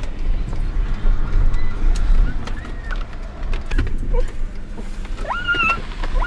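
A vehicle running with a low rumble and scattered clicks and knocks. About five seconds in, a dog gives a high whine that rises at the start and is held briefly.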